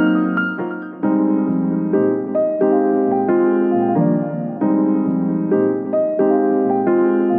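Background piano music: a gentle tune of chords, with a new chord struck about every second.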